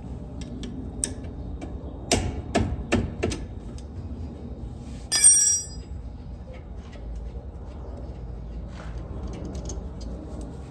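Brake noise from a 2008 Kia Sportage: a quick run of four sharp knocks about two seconds in, then a brief high-pitched squeal about five seconds in, over a low steady rumble.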